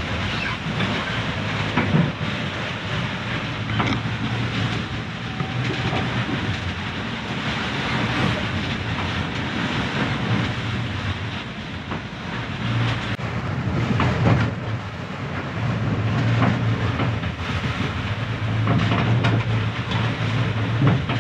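Inside the cabin of a Leopard 45 sailing catamaran under way in short, choppy seas: a steady rumble and wash of water along the hulls, with a few sharp knocks.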